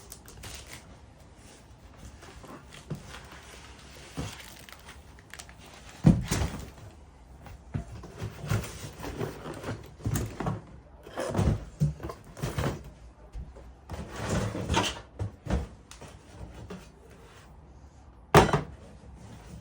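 A diesel heater's packaging being opened and unpacked: scattered rustling and scraping, with two sharp thuds, one about six seconds in and another near the end.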